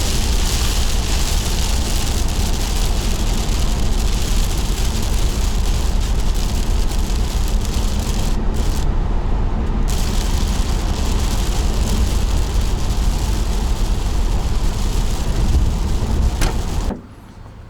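Van driving in heavy rain: a steady rumble of road and engine under the hiss of rain and tyre spray. The hiss drops out briefly about halfway through, and the sound cuts off abruptly near the end.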